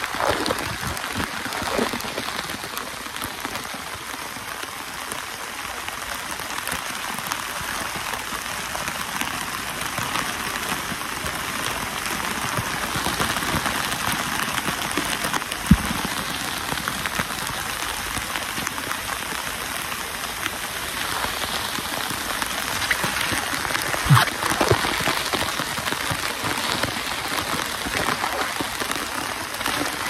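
Waterfall water pouring and splashing right over the microphone, a steady dense hiss of falling water. Two sharp knocks stand out, about halfway through and again later.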